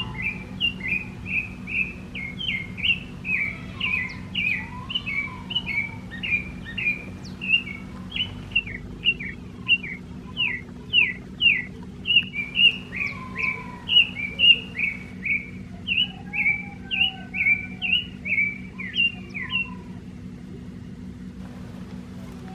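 A bird chirping over and over, about two to three sharp chirps a second, stopping about twenty seconds in. Fainter, lower whistled calls sound behind it over a steady low hum.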